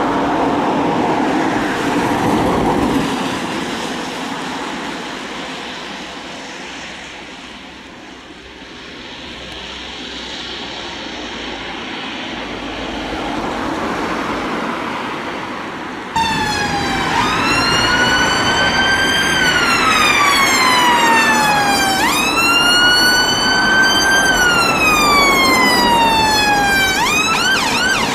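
Mercedes ambulance driving past on blue lights with no siren sounding, its engine and tyre noise fading away and building again as traffic follows. Then, abruptly, an ambulance siren in a slow wail that rises and falls twice, switching to a fast yelp near the end.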